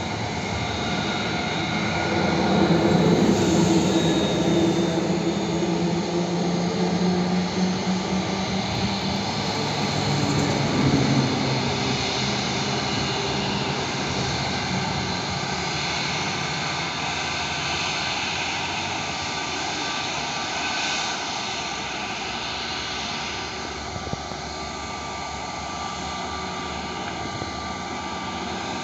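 Airbus A320-family twin-jet airliner's engines running at low taxi power as it rolls along the runway: a steady jet whine over a rumble, loudest in the first ten seconds or so, then easing a little and holding steady.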